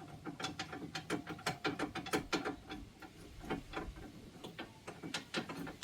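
Hand socket ratchet wrench clicking in quick back-and-forth strokes, about four or five clicks a second, pausing briefly midway and then starting again.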